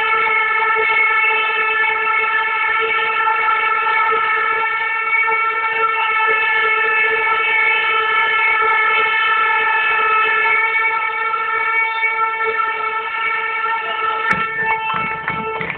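A handheld air horn sounding one long, steady, unbroken note that stops about a second before the end, followed by a brief clatter of crowd noise.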